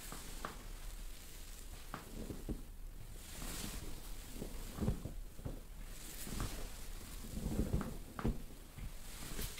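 Dry massage handling sounds: a forearm pressing and shifting on a clothed hip, with fabric rustling and several soft, dull thuds, the heaviest in a cluster about three-quarters of the way through.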